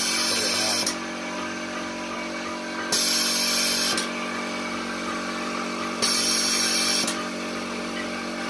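Locally made ventilator running: a steady motor hum, with a hiss of air lasting about a second that comes about every three seconds as the machine cycles through breaths, three times here.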